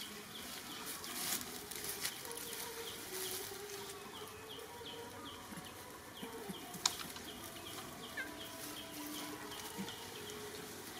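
Outdoor ambience of a steady series of short, high, falling chirps from a small calling animal, about three a second, over the rustle and crackle of dry leaf litter as the macaques move in it. There is one sharp click a little before seven seconds.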